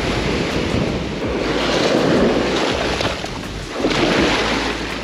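Small surf waves breaking and washing up over the sand in the shallows, swelling twice about two seconds apart.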